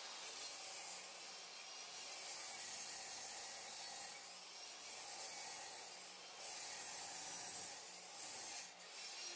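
Rough-cut red oak board sliding and scraping across a table saw's table, faint and in stretches of a second or two.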